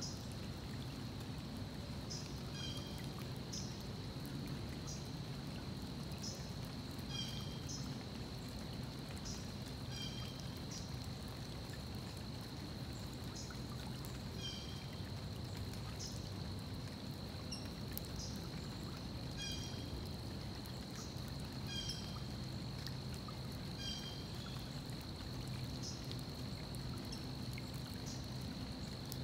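Stream water running steadily while a bird gives short high chirping calls, repeated every second or two, over a steady high-pitched tone.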